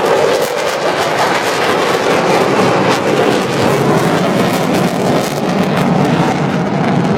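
Fighter jet engine noise from a display pass: a loud, continuous rush with a crackling edge, its pitch sinking slowly as the aircraft goes by.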